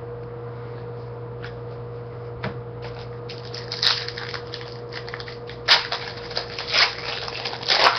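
Trading card pack wrapper being torn open and crinkled in the hands, in irregular crackling bursts that begin about two and a half seconds in and get louder toward the end. A steady hum runs underneath.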